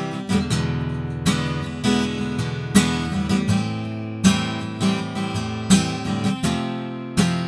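Acoustic guitar strummed in a steady rhythm, a strong strum roughly every three-quarters of a second, with the chords ringing between strokes.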